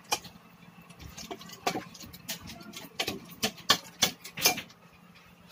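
Metal spatula clinking and scraping against the side of an aluminium cooking pot as chicken adobo is stirred, an irregular run of sharp knocks.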